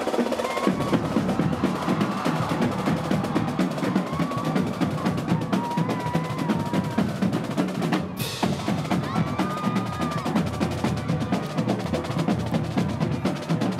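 Marching band drumline playing a fast, driving cadence on snare and bass drums, with a brief break about eight seconds in.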